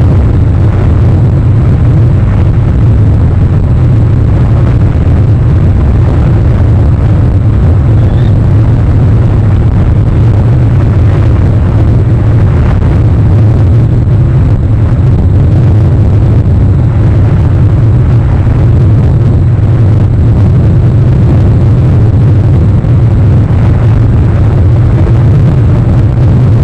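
Loud, steady low rumble, unchanging throughout, with one brief faint high chirp about eight seconds in.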